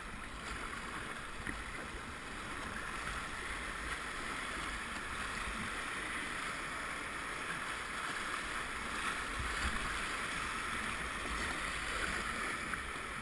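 Whitewater of a river rapid rushing steadily around a kayak running it, a little louder through the middle.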